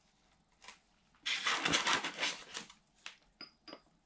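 Hands handling small statue parts and a glass dome: about a second in, a stretch of rustling handling noise, then a few light clicks near the end, two of them with a brief high ring.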